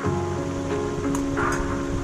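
Background music with held notes, over a steady hiss.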